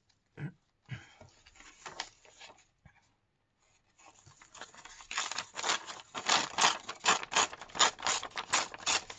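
Stiff, distressed paper pages being handled, rustling and crinkling. A few soft taps at first, then from about halfway a busy, crisp run of crackles, several a second.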